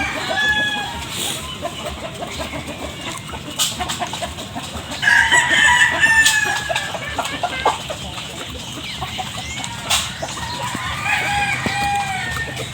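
Chickens clucking at feeding time, with a rooster crowing; the longest, loudest call comes about five seconds in.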